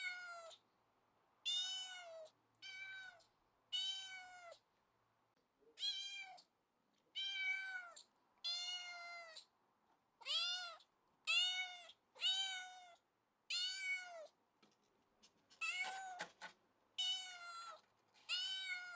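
A domestic cat meowing over and over, about fourteen separate meows, each under a second long with short pauses between. Each meow rises and then falls in pitch.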